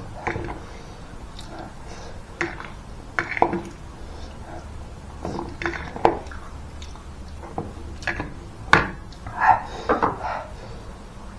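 Eating utensils clicking and scraping against a bowl of noodles, a sharp click every second or two, with short mouth sounds near the end.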